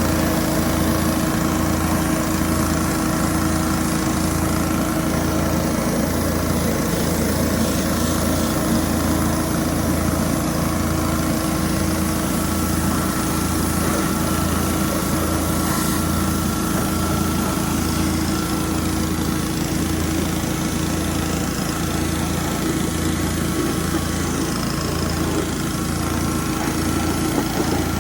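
Pressure washer running steadily with a constant engine hum and a slight pulsing about once a second.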